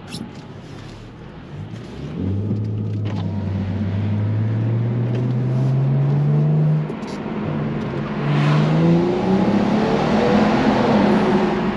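BMW 335i's turbocharged straight-six accelerating hard from a standstill, heard from inside the cabin. The engine note climbs steadily from about two seconds in, drops at an automatic upshift near seven seconds, climbs again and shifts once more, with road and wind noise building as speed rises.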